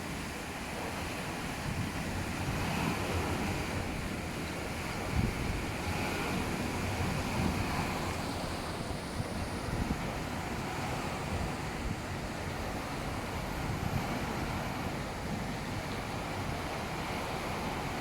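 Rollover bus and truck washing machine running, a steady rushing noise with small irregular peaks.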